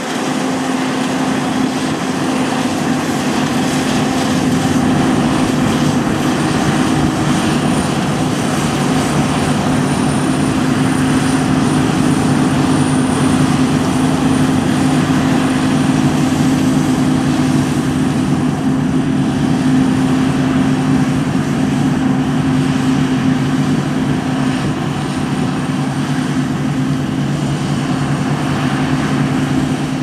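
Claas Lexion 670 combine harvester running under load while cutting barley. Its engine and threshing machinery give a steady, loud drone with a low hum, and a faint high whine comes in through the middle.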